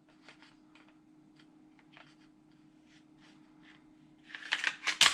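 Gas-blowback airsoft Glock 17 pistol being reassembled, its slide fitted back onto the frame: scattered light clicks of parts being handled, then a burst of louder clacks and rattles near the end as the slide goes on.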